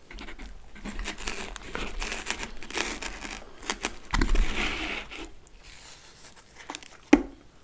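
A pizza slice being torn from the whole pie by hand in its cardboard box: crackling and tearing of crust and melted cheese, loudest about four seconds in, then fading as the slice is lifted free. One sharp tap near the end.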